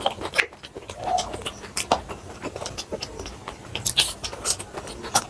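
Eating sounds: chewing and biting flatbread, with many short sharp clicks and smacks scattered irregularly.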